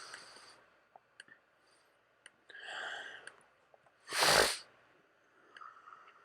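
A person sneezing once about four seconds in: a short, breathy intake, then one loud burst of breath. A few faint clicks of LEGO pieces being handled are scattered around it.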